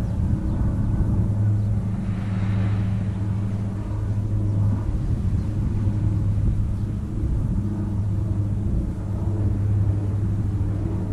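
Steady low engine drone holding a constant pitch, with wind rumbling on the microphone.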